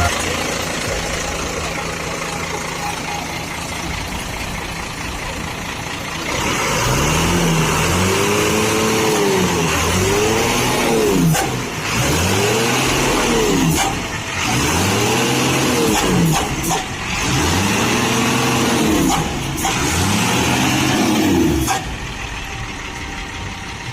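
Bus diesel engine running, then revved up and down about six times in a row, each rev rising and falling in pitch over about two seconds.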